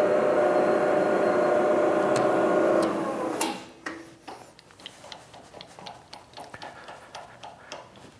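Milling machine spindle running with a steady pitched hum while a countersink deburrs a freshly tapped hole in a metal plate; about three seconds in it winds down and stops. Scattered light clicks and taps follow.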